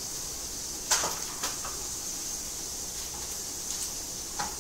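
Sliced peppers, squash and zucchini sizzling steadily in oil in a skillet, with a few light knocks of containers handled on the counter: a sharp one about a second in, another just after, and one near the end.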